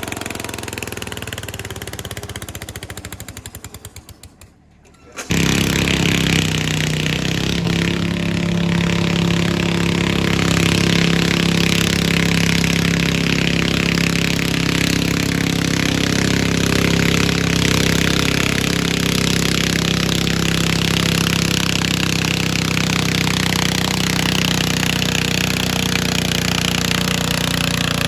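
A garden pulling tractor's engine winds down, its pulses slowing and fading to a brief silence. About five seconds in, another loud engine cuts in abruptly and runs hard and steadily, as a garden tractor engine does under load on a pull.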